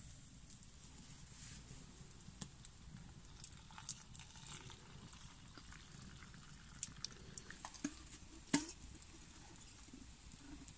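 Wood fire crackling quietly with scattered small pops, and one sharper pop about eight seconds in.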